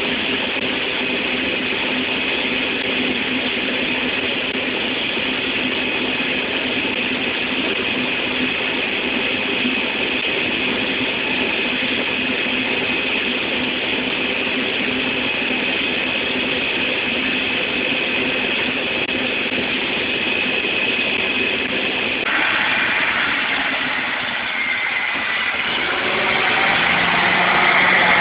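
Harvest machinery running steadily, with a steady high whine over the engine. The sound changes abruptly about three-quarters of the way through and grows louder near the end.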